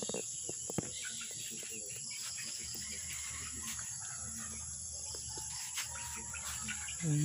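Crickets chirring steadily in a high, continuous drone, with a few faint clicks.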